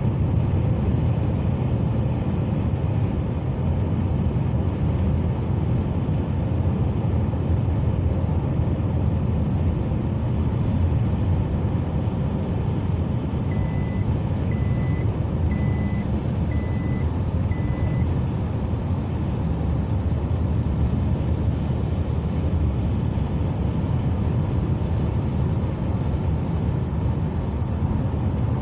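Steady road and engine rumble heard inside a vehicle's cabin while cruising on a highway, with five short high beeps about a second apart near the middle.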